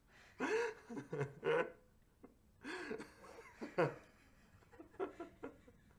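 People laughing and giggling in several short bursts.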